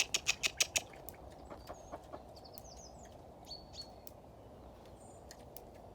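Chickens and young poultry in their pens: a quick run of about six short, sharp clucks in the first second, then scattered faint, high chirps.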